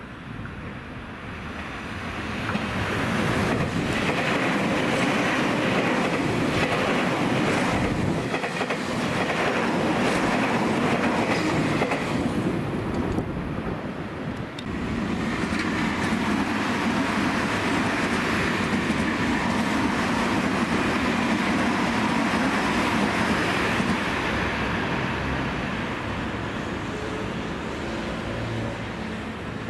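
Tobu 50000-series electric trains passing, with a run of clacks from the wheels over the rail joints. The sound dips briefly about halfway through, then a second stretch of train running follows and fades away near the end.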